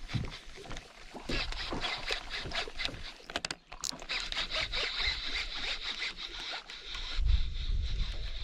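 Baitcasting reel being cranked hard while a hooked bass is fought to the boat: rapid ratcheting clicks and a steady reel whir. Low wind rumble on the microphone comes in near the end.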